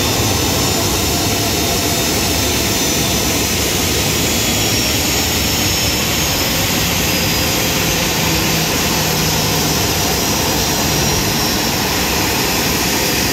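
Boeing 737's jet engines at taxi idle as it moves in to park at the gate: a steady rushing drone with a faint high whine.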